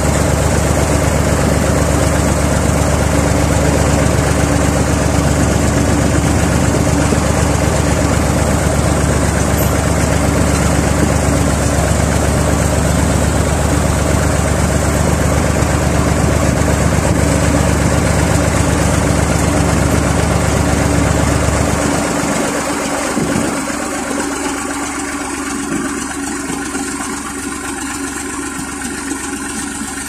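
Massey Ferguson 135 tractor engine running steadily while driving. About three quarters of the way through, its deep low rumble drops away and it runs quieter.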